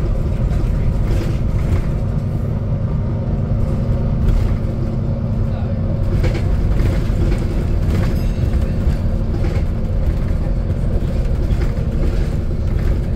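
Volvo double-decker bus's diesel engine running steadily with road noise, heard from inside the bus, and a few brief rattles of fittings.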